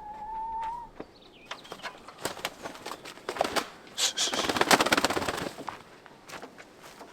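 Chickens scuffling and flapping, with scattered knocks and scrapes and a loud burst of rapid wing flapping about four seconds in. A short rising squeak opens it.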